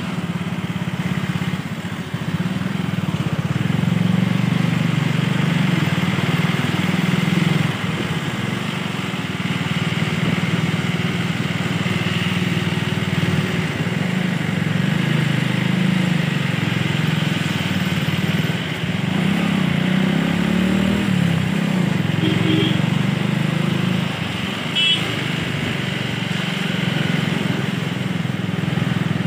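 Steady engine drone of road vehicles following a tour bus along a winding hill road, its pitch wavering up and down. A couple of brief higher-pitched sounds come about three-quarters of the way through.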